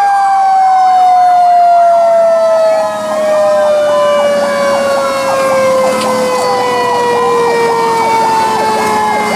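Fire engine's Federal Q mechanical siren winding down, its pitch falling slowly and steadily. About three seconds in, a Federal PowerCall electronic siren joins it with a rapid up-and-down yelp, about three cycles a second.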